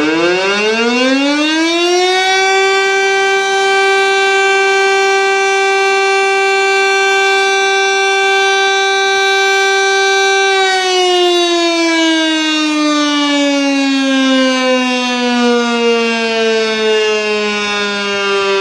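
East German DS977 electromechanical civil-defence siren on its weekly test alarm: it winds up to a steady wail in about two seconds, holds one steady tone, then slowly winds down from about ten seconds in as the rotor coasts.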